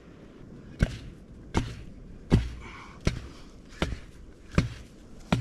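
A chunk of coral chopped into hard-packed sand, seven dull strikes about three-quarters of a second apart, breaking up the sand for digging.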